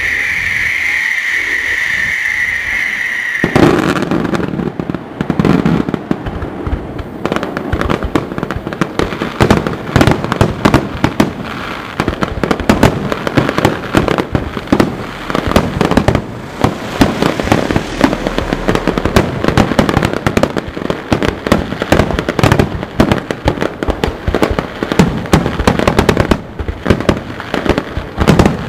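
Festival fireworks: a high whistle held for about three and a half seconds, sliding slightly down in pitch, then a dense barrage of rapid bangs and crackling that runs on without a break.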